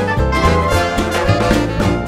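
Background music: an upbeat swing-style brass band tune with trumpets and trombones over a steady beat.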